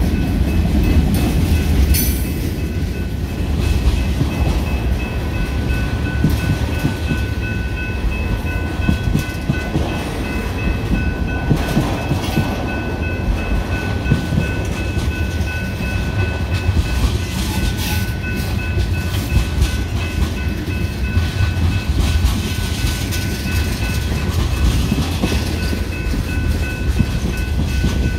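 Freight train's tank cars and covered hoppers rolling past close by: a steady low rumble with scattered clacks of wheels on the rail, and a faint steady high whine held over it.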